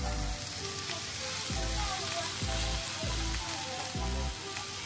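Beef and noodles sizzling on a hot iron plate as they are stirred with chopsticks, a steady frying hiss, under background music with a regular bass beat.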